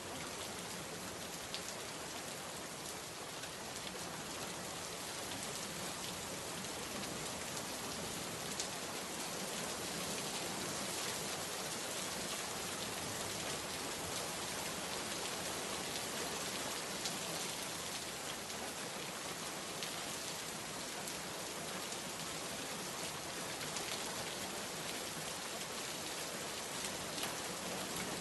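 Steady rainfall, drops pattering on a surface, with faint scattered drop ticks and no let-up.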